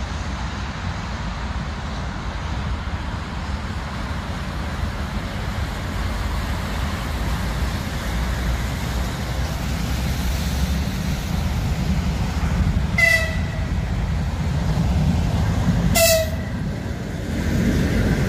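An electric train approaches with a steady low rumble and sounds two short horn toots about three seconds apart. Near the end the rumble of wheels on rails grows loud as the cars pass close by.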